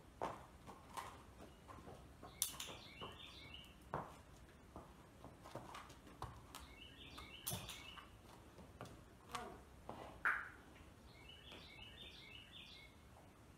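A small bird singing a short phrase of quick chirping notes three times, about four to five seconds apart, over scattered light knocks and clicks.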